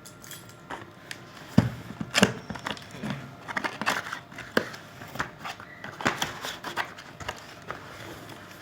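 Unboxing a laptop: a sealed cardboard box and its packaging being torn open and handled, an irregular run of crinkles, scrapes and knocks, the sharpest knock about a second and a half in.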